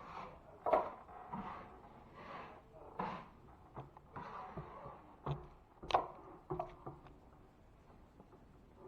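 Irregular scraping strokes and sharp knocks from hand work with drywall tools, with the loudest clacks about a second in and about six seconds in.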